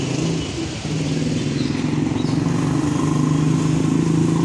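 A steady engine-like motor hum, with a low, even drone.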